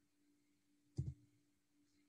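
Near silence with a faint steady hum, broken by one short, soft thump about a second in.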